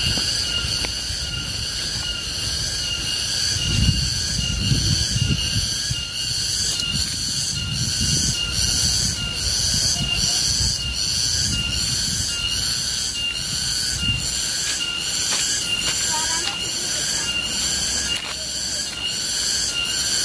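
Garengpung cicada calling loudly, a high-pitched pulsing drone that repeats about three times every two seconds. Low rumbling handling noise from the moving camera comes and goes beneath it.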